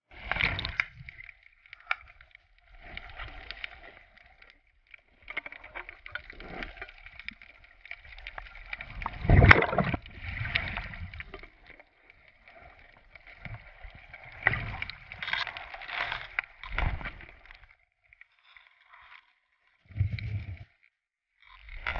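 Water sloshing and gurgling around a GoPro in its underwater housing as a diver moves in the water, in irregular splashes, the loudest about nine seconds in.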